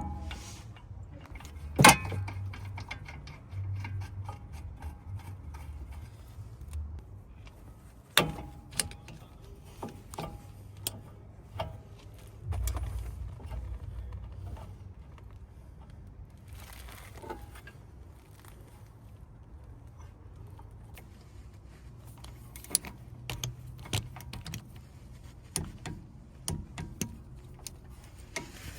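Scattered metallic clinks, taps and knocks of hand tools and brake parts being handled during rear brake caliper and pad work, with two sharper knocks about two and eight seconds in.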